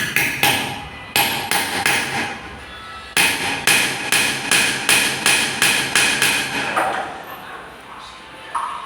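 Repeated sharp hammer strikes on metal during goldsmithing: a few scattered blows, then from about three seconds in a steady run of roughly nine strikes, a little over two a second, which stops about seven seconds in.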